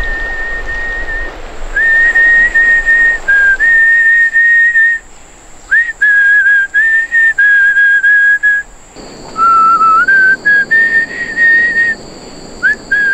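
A person whistling a slow tune: long held notes with small steps in pitch, short upward slides into some notes, and brief pauses between phrases.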